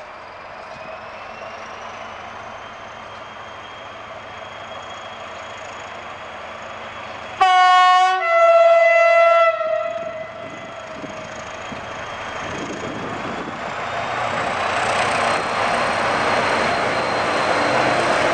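Fablok SM42 diesel shunting locomotive approaching under power, its engine note rising in the first two seconds. About seven and a half seconds in it sounds a two-note horn for about two seconds, then its engine and wheels on the rails grow steadily louder as it draws close.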